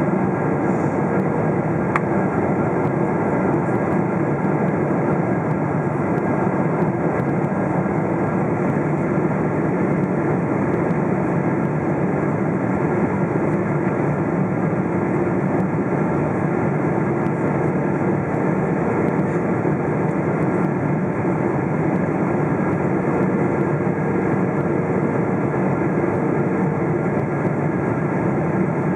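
Steady roar of a Boeing 777-300ER's GE90 engines and rushing air, heard from inside the passenger cabin during the approach.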